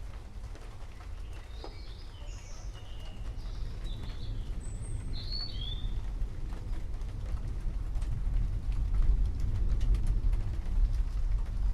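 Distant thunder rumbling low and swelling louder in the second half, over light rain pattering. Small forest birds chirp a few short calls in the first half.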